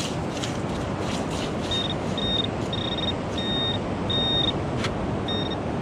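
Handheld metal-detecting pinpointer beeping as it is probed through dug-up sand over a metal target: a string of about seven high, steady beeps of differing lengths. Gritty scraping of sand comes in the first second or so, with a sharp click near the end, all over a steady hiss.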